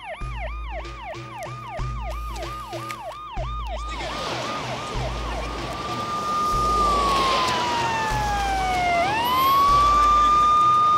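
Emergency vehicle sirens. First a fast yelp of falling sweeps, about three a second. After about four seconds it gives way to a slow wail that sinks and then rises back up, with street noise swelling in and a low pulsing throb underneath.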